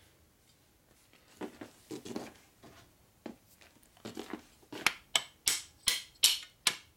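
Metal parts of a Harley WLA clutch rocker arm being handled, with a few soft knocks, then a steady run of sharp metal taps, about three a second, beginning just past the middle, as a part that doesn't want to fit is worked into place.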